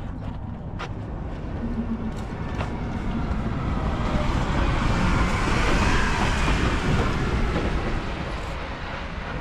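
Rumble of a vehicle, growing louder to a peak about halfway through and then easing off.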